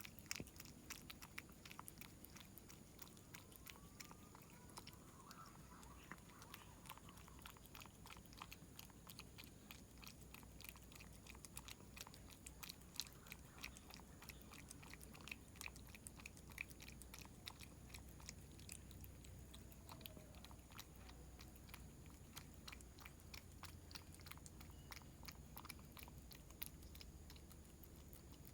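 A cat eating close to the microphone: a quick, continuous run of small crunches and clicks of chewing and biting.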